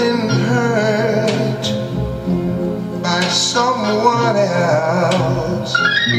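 A sampled song playing back from the Maschine sampler: a sung vocal line with wavering pitch over instrumental backing.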